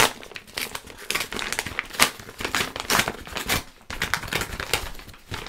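Brown paper packaging crinkling and rustling in irregular bursts as it is opened by hand, with a few louder crinkles about two and three seconds in.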